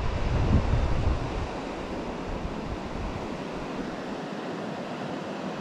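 Shallow river water rushing over a stony bed, a steady even hiss. Low buffeting on the microphone at the start dies away after about a second and a half.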